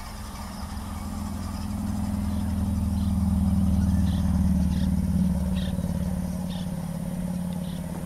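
A steady low motor hum that grows louder toward the middle and then fades, with a few faint short chirps above it.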